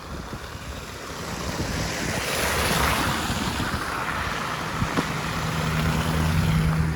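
Street traffic passing: tyre hiss swells to a peak about three seconds in and eases off, then a steady low engine hum sets in near the second half.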